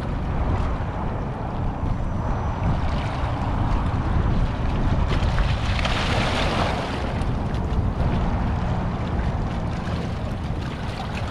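Small waves washing against the rocks of a stony shoreline, with wind rumbling on the microphone. A wave splashes over the rocks about six seconds in.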